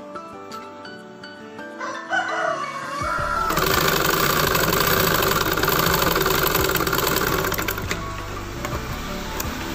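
Sewing machine stitching piping onto a neckline. It starts about three seconds in and runs steadily at speed with a fast, even ticking for about six seconds, then slows near the end. Soft background music plays underneath at the start.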